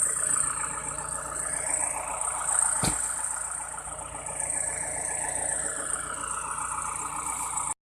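Lorry engine running steadily under a constant high hiss, with one sharp click about three seconds in.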